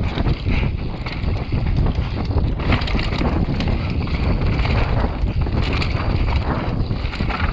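Wind rushing over the microphone of a camera on a mountain bike riding fast down a rough dirt trail. Frequent short clicks and knocks come from the bike and tyres on the loose, rocky ground.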